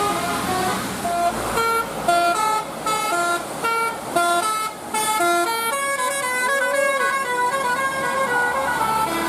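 A bus's telolet horn, a multi-tone musical horn, plays a tune. It starts with a quick run of short notes at different pitches, then moves to longer notes that run into one another from about halfway through.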